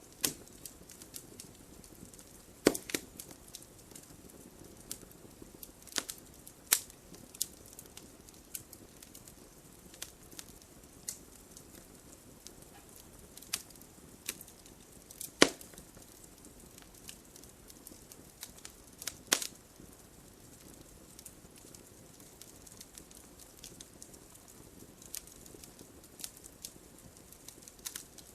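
Wood fire burning in a fireplace, crackling with scattered sharp pops from the burning logs over a faint low hiss of flame.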